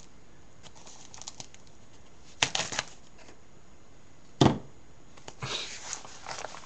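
Packaging rustled and torn open by hand, in short spells about two and a half and five and a half seconds in, with a single sharp thump about four and a half seconds in.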